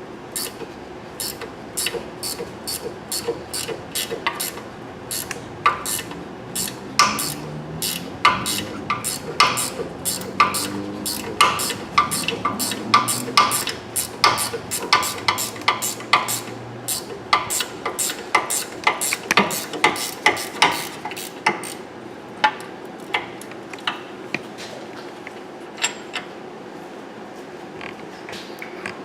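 Ratchet wrench clicking through many quick strokes, turning bolts out in a tight spot while a wheel bearing is being replaced.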